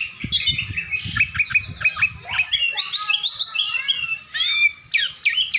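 Oriental magpie-robin singing a fast, varied run of quick whistled and sweeping notes, with a brief pause near the end.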